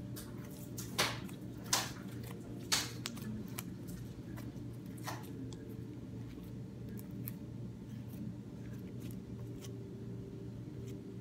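Slime kneaded and squeezed by hand while purple pigment powder is worked in, making sticky clicks and pops: three sharper pops in the first three seconds, then smaller crackles. A steady low hum runs underneath.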